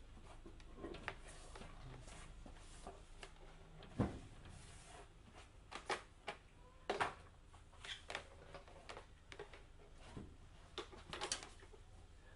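Handling noises at a shop counter: scattered short clicks, knocks and rustles of things being picked up, set down and wrapped, with one sharper knock about four seconds in.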